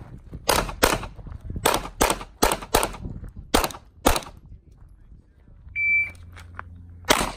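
Handgun shots fired in quick pairs, eight shots over about four seconds. After a pause, a shot timer gives a short high start beep, and a single shot follows about a second later.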